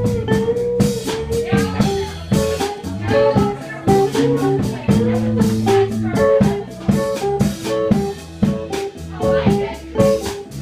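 Live music: a Stratocaster-style electric guitar played through an amp over a steady drum beat, the guitar line bending between notes.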